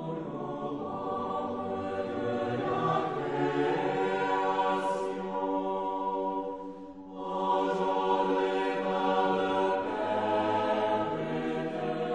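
Choir singing a slow chant in long held notes, with a short break between phrases about seven seconds in.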